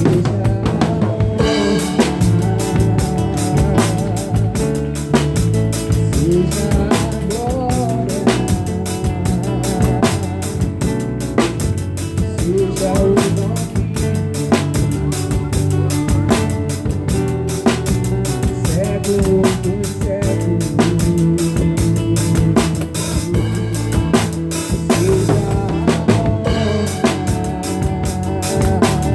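Live band playing a pagode groove, the drum kit driving it with steady bass drum, snare and rimshot strokes over pitched instruments.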